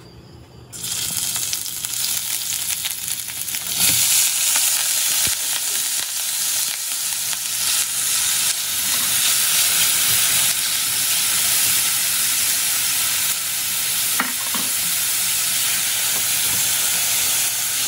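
Finely diced onion hitting a hot stainless steel frying pan and sizzling as it sautés, stirred with a silicone spatula. The sizzle starts suddenly about a second in, grows louder about four seconds in, then holds steady.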